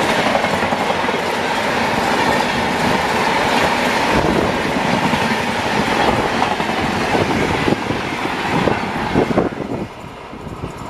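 Rajdhani Express passenger train running past at speed: a loud, steady rush of wheels on rails that drops off abruptly near the end.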